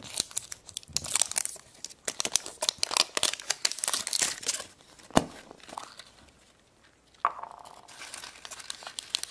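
Thin foil wrapper of a plastic surprise egg being peeled off and crumpled by hand: a dense run of crinkling, tearing crackles. A single sharp click comes about five seconds in, then quieter handling as the plastic egg is opened.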